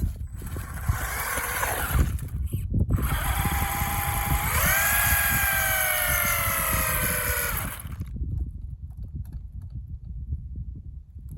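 RC car motor whining: the pitch jumps up about four and a half seconds in, then slowly falls away and stops near eight seconds, over a steady low rumble.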